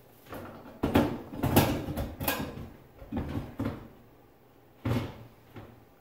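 Electric cooktop being lowered into a granite countertop cutout and pressed into place: a run of clunks and knocks for about three seconds, then one more thump about five seconds in.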